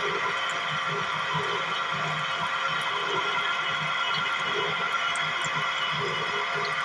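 Coconut oil expeller press running: a steady hum with several high whining tones over an uneven low throbbing.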